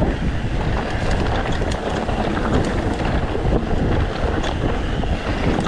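Wind rushing over the camera microphone as a mountain bike rolls fast down a dirt trail, its tyres rumbling over the ground and the bike rattling and clattering with frequent short knocks over roots and rocks.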